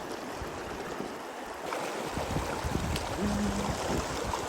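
Steady rush of flowing stream water, louder and fuller from about halfway through.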